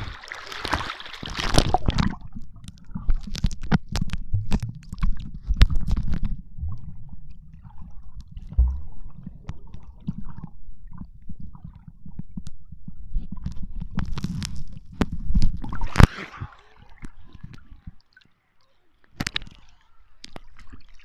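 Sea water sloshing and gurgling against a camera microphone dipped below the surface, heard as a muffled low rumble with many small clicks. Splashes come as the camera breaks the surface at the start and again about fifteen seconds in.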